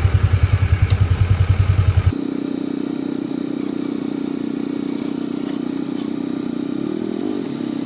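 Backhoe engine running: a loud, evenly throbbing low sound that changes abruptly about two seconds in to a steadier, higher engine hum.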